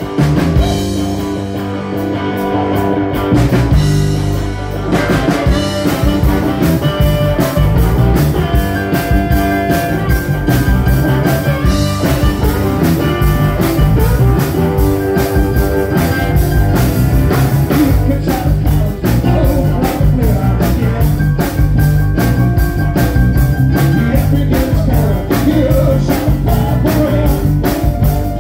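Live rock band playing on electric guitar, bass guitar, drum kit and keyboards. The song opens on sustained chords, and the drums come in with a steady beat about five seconds in.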